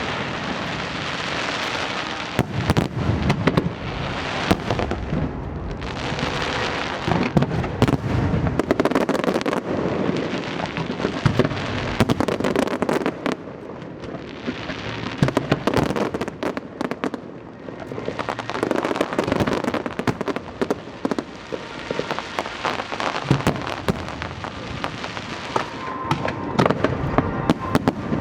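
Aerial fireworks display: many sharp bangs in quick, overlapping succession, with swelling stretches of crackle and hiss, going on without a break.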